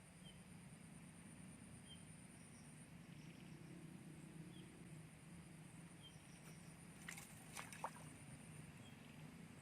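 Faint outdoor ambience near silence: a steady high insect drone and a short chirp about once a second over a low hum, with a few sharp clicks near the end.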